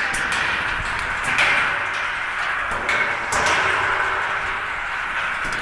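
Walnut sizing machine's perforated steel drum turning, walnuts rattling and tumbling inside with several sharper knocks, as nuts stuck in the drum's holes are pushed free by hand.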